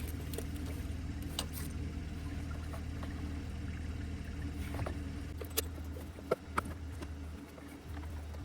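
Light metallic clicks and clinks of hand tools and engine parts being handled, a few scattered knocks over a steady low hum.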